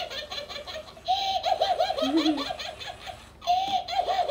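Tony Tony Chopper talking doll giggling in a high-pitched cartoon voice, in two quick pulsing bursts, the second starting about three and a half seconds in.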